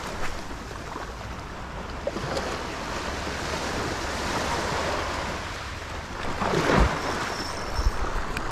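Surf washing on the shore with wind buffeting the microphone; the wash swells louder about six and a half seconds in.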